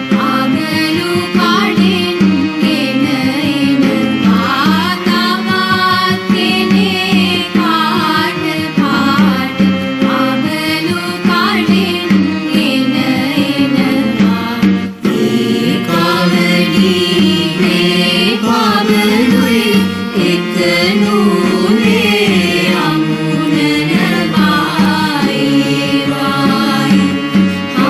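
A Sinhala song: a singer's melodic voice over instrumental accompaniment with percussion.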